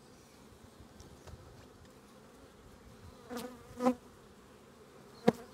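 Honey bees humming steadily around an open hive, with a bee buzzing close by twice about three and a half seconds in. A single sharp click near the end.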